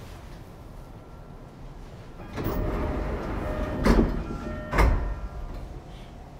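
Passenger doors of a Sotetsu 11000 series train opening at a station stop: a rising rush of air about two seconds in, then two heavy thumps a second apart as the door leaves reach the end of their travel, with faint chime-like tones over them.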